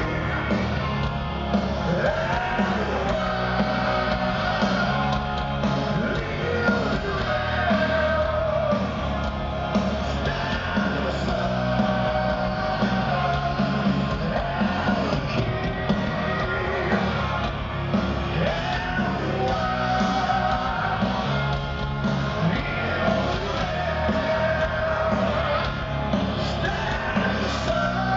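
Heavy metal band playing live through a large PA, a male voice singing over electric guitars, bass and drums.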